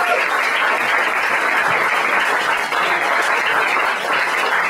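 Audience applauding steadily, the applause that closes a stand-up comedy set.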